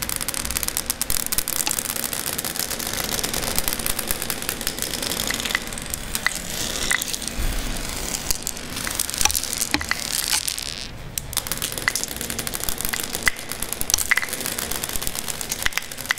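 Glass marbles rolling across a hard floor, a continuous rattling rumble broken by many sharp clicks as they knock into one another.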